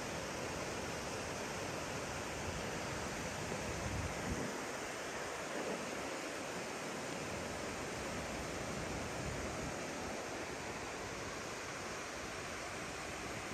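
Glacial meltwater river rushing over boulders: a steady roar of water, with wind rumbling on the microphone that drops away for a few seconds about four and a half seconds in.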